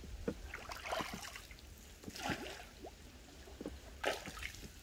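Irregular small splashes and drips of water around a small wooden boat on a canal, the sounds of a net being worked from the boat.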